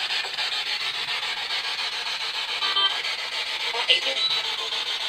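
PSB7 spirit box sweeping through radio channels: a steady, choppy hiss of static that flutters rapidly as it hops stations, with brief snatches of radio sound. One snatch near the end is taken by the investigators for the words "I hate him".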